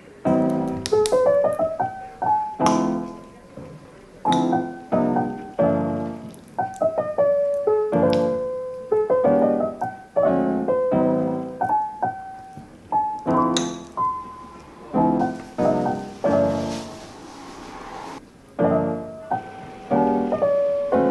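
Background music: a solo piano piece of plucked-sounding chords and melody notes, each struck and fading.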